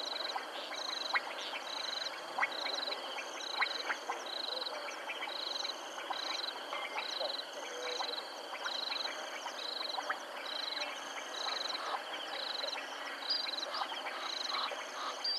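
Chorus of frogs and insects from a wetland: a high trilling call repeats about three times every two seconds over a higher buzzing call and many scattered short clicks.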